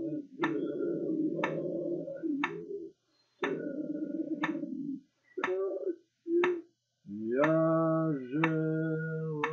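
Sharp clicks about once a second, keeping an even count like a metronome, under a low voice chanting in long held tones. About seven seconds in, a clear sustained sung note begins and bends briefly before holding steady.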